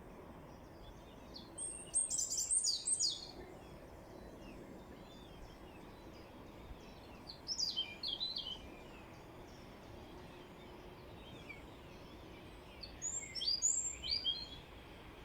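A songbird singing three short phrases of quick, high chirps, about five seconds apart, over a steady background hiss.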